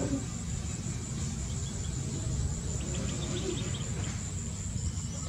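Steady high-pitched trilling of an insect chorus, crickets or similar, over a constant low background rumble.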